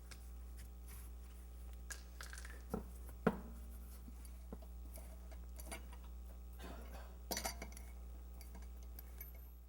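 Metal hand tools clinking and clattering as they are handled and set down, with the sharpest clink about three seconds in and a cluster of clinks near seven and a half seconds, over a steady low hum.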